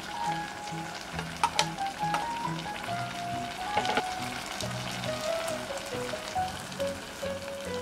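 Diced tomatoes sizzling and frying in hot oil in a pot, with a few sharp clicks of a utensil against the pot, under soft background music.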